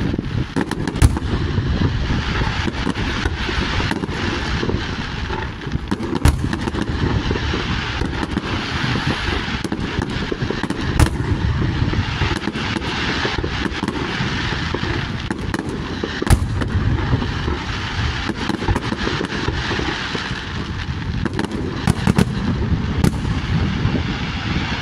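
Fireworks display: a dense, continuous crackle of bursting shells, punctuated by sharp bangs every few seconds, including two close together near the end.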